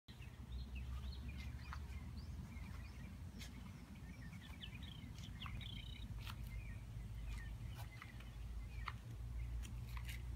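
Birds chirping and calling in many short, quick chirps, with a few sharp clicks, over a steady low rumble.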